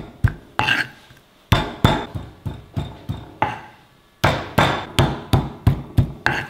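Stone pestle (ulekan) pounding boiled jengkol slices flat against a stone mortar (cobek): a run of sharp knocks, about three a second, with a short pause about four seconds in.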